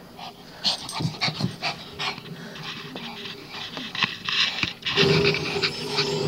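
Small dog panting hard during rough play, amid short, quick scuffling sounds.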